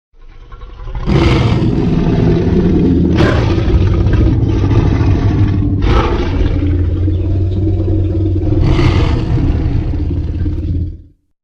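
Godzilla sound effect: a heavy low rumble over a steady low hum, with four sharp crashing hits about one, three, six and nine seconds in. It swells in at the start and cuts off abruptly near the end.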